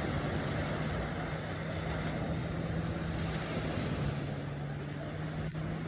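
Seaside ambience: waves washing on the shore and wind on the microphone, with a steady low hum underneath.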